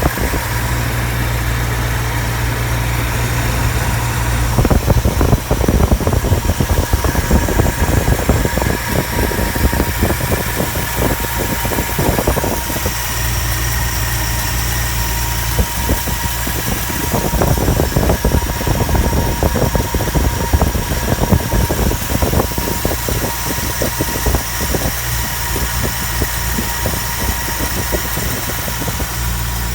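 Nissan 230 Gloria's engine idling steadily, with frequent irregular clicks over the low running note.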